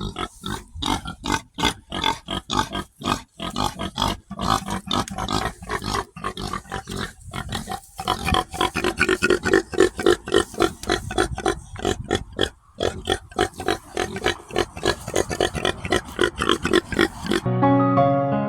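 Pigs grunting, a fast run of short calls several a second. About a second before the end they stop and soft piano music begins.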